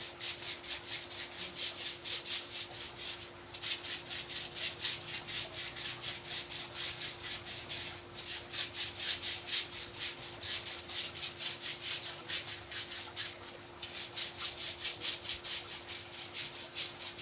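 Rapid, rhythmic massage strokes rubbing over skin, about three a second, with a few short breaks.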